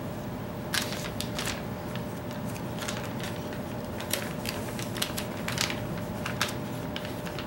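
Fishing-bait packaging crinkling and rustling as hands rummage through a cardboard shipping box: a run of short, irregular crackles starting about a second in, over a steady low hum.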